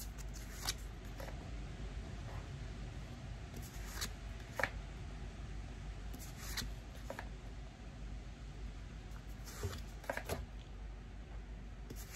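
Tarot cards being handled one by one, each card giving a light snap or slap as it is flipped and laid down. The snaps often come in pairs, every second or two.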